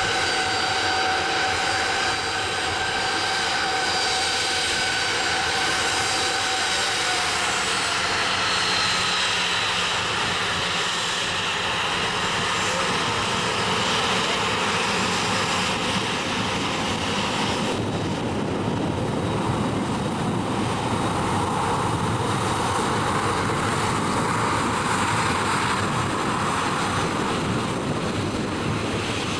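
Jet2 Boeing 737's jet engines running close by, a steady whine of several tones that sags slightly in pitch about seven seconds in. From about eighteen seconds a broader rushing roar takes over.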